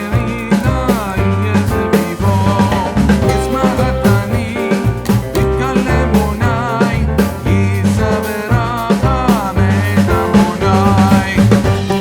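Background music with a steady drum beat, a walking bass line and a melody on top.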